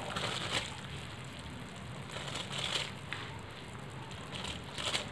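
Coconut milk and water boiling steadily in a cooking pot, with a few short louder bursts as soaked basmati rice is added and stirred in.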